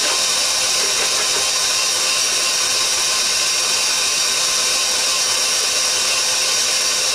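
Electric stand mixer running steadily as it kneads bread dough in a steel bowl.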